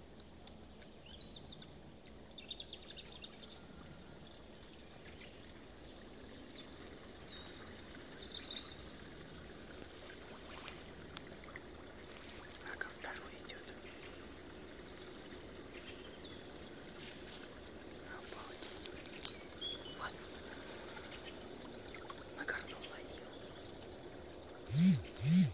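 Shallow water trickling and sloshing as beavers wade and work in a muddy channel, with small high chirps and clicks scattered throughout. Two short loud sounds come near the end.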